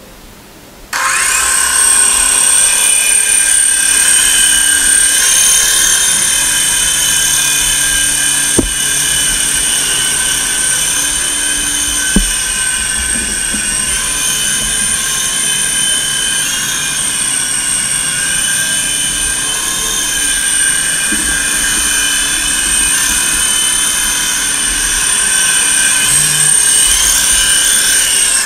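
Small electric motors of a 3-channel iPhone-controlled toy R/C helicopter spinning up about a second in and running steadily in flight, a loud high whine of several tones that stops at the very end.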